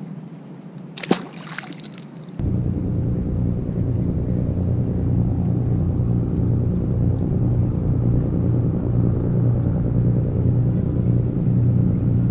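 A single sharp knock about a second in, then a steady low engine rumble that starts abruptly about two and a half seconds in and runs on evenly.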